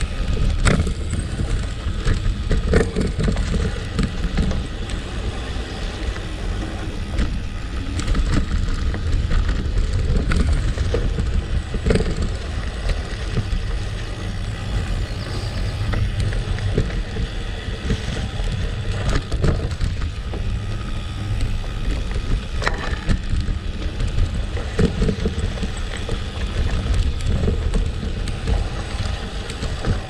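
Gravel bike rolling on a gravel road: steady tyre noise with scattered sharp clicks from stones and bike rattle, over a continuous low rumble of wind on the microphone.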